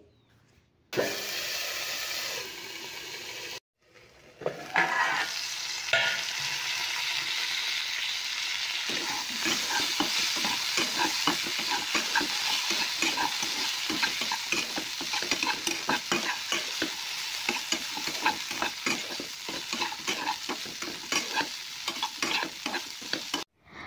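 Yardlong beans and potato pieces frying in mustard oil in a nonstick kadhai, sizzling steadily. A metal spatula scrapes and knocks against the pan as they are stirred, the strokes coming thick and fast from about nine seconds in.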